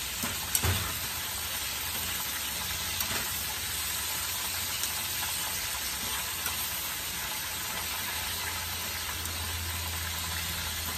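Steady sizzle of food frying in hot oil in pans on the stove, with one short knock a little under a second in.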